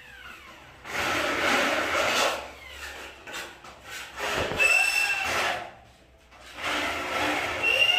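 Corded electric drill boring into the window frame and the wall around it, in three bursts of a second or two each.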